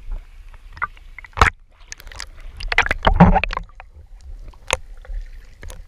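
Sea water sloshing and splashing around a waterproof action-camera housing as it dips in and out of the surface, with scattered knocks against the housing. A louder rush of splashing and bubbles comes about three seconds in.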